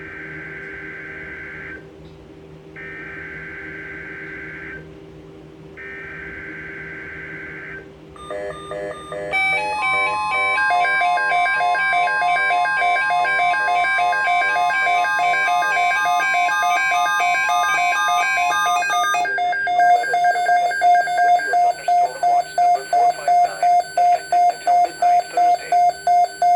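NOAA Weather Radio Emergency Alert System alert for a severe thunderstorm watch: three bursts of the warbling SAME digital header, then the long steady warning-alert tone with an alarm beeping over it. Near the end the alarm turns to fast, even on-off beeping.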